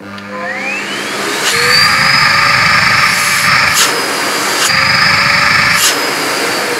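Sebo Airbelt K3 Premium Eco's 700 W vacuum motor starting up, its whine rising in pitch over the first second or so as it spins up, then running steadily. Several sharp clicks are heard while it runs, and the whine begins to fall near the end as the motor winds down.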